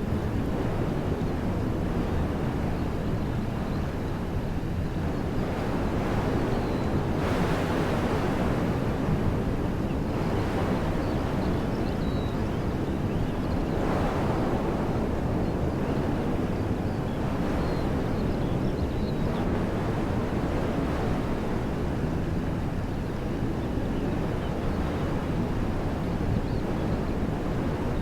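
Wind blowing through woodland trees: a steady rushing like surf, with gusts swelling and easing several times.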